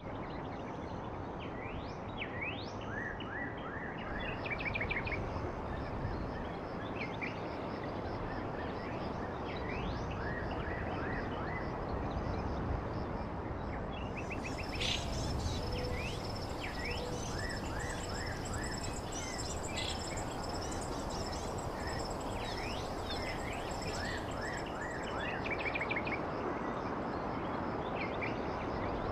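Outdoor ambience of birds chirping and trilling in short repeated calls over a steady background hiss. About halfway through, a steady high-pitched insect drone joins in.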